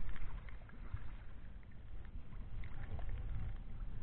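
Shallow water lapping and sloshing at the shore, with small irregular crackles of moving water over a low, uneven rumble.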